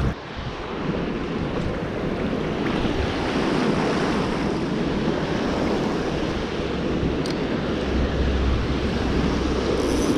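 Shallow surf washing in and out over beach sand, with wind rumbling on the microphone.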